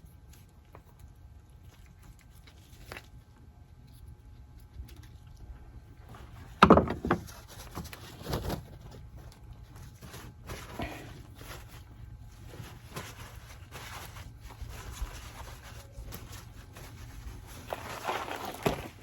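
Scattered clanks and scrapes of metal parts and tools being handled at a truck wheel hub, the loudest a single sharp clank about seven seconds in, over a faint steady low hum.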